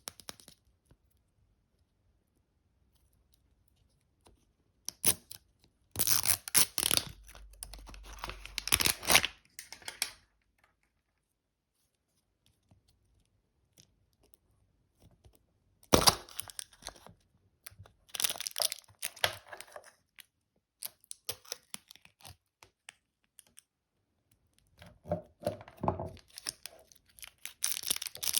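Surprise egg wrapper being torn open and crinkled by hand in three bouts: about five to ten seconds in, again from about sixteen to twenty seconds, and near the end, with silent pauses between.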